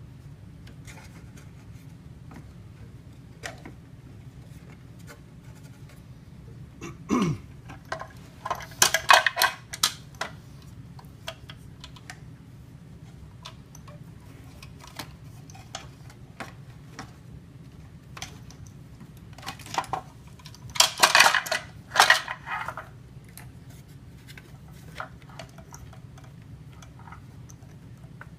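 Small hard parts and tools clicking and clattering as they are handled, with scattered single clicks and two louder bursts of rattling, about 9 and 21 seconds in. A short falling tone comes just before the first burst, over a steady low hum.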